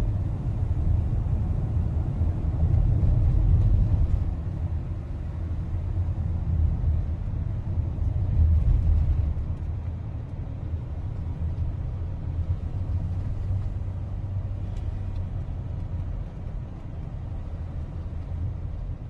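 A moving car's low, uneven road and engine rumble, swelling and easing a little.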